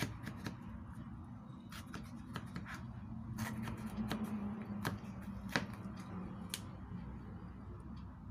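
Knife and fingers working a red bell pepper on a plastic cutting board: scattered, irregular clicks and taps as the stem is cut out of the pepper's top, over a steady low hum.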